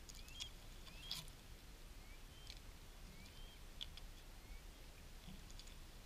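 Faint clicks and taps of beaks pecking at fish scraps on rock, the loudest about a second in. A bird's short rising chirps come about six times among them.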